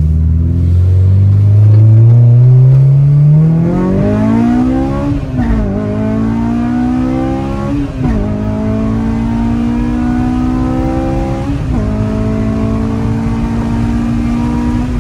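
Honda four-cylinder car engine accelerating hard through the gears: the revs climb steadily and drop at three upshifts, about five, eight and eleven and a half seconds in, then fall away near the end as the throttle eases.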